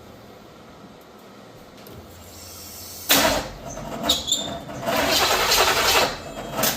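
A 350 small-block V8 being cranked on its starter and failing to start, with loud uneven surges for the last few seconds. The plug wires are on one position off in the firing order.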